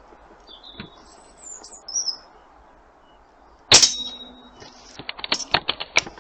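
Air rifle shot and pellet strike on a metal target: a sudden sharp metallic clang that rings on for about a second, followed by a run of quick clicks and rattles. Small birds chirp faintly before the shot.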